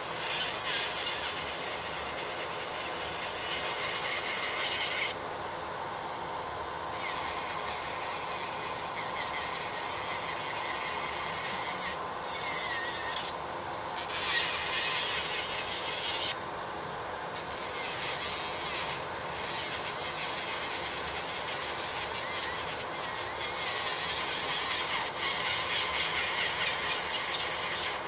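Makartt nail dust collector fan running steadily, under an electric nail drill grinding acrylic off a nail. The higher, gritty grinding drops out several times for a second or two as the bit comes off the nail.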